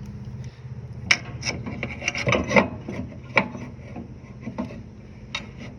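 Irregular metal clicks, taps and scrapes of a wrench and bolts being worked by hand while the engine mounting bolts go in.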